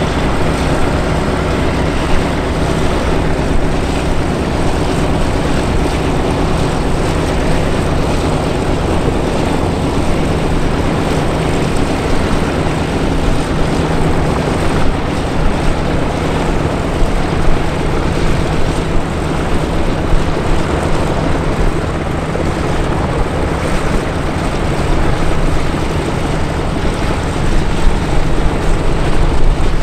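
Westland Sea King and Wessex helicopters flying in formation: a steady rotor and turbine engine noise with a low hum, growing a little louder near the end as they come closer.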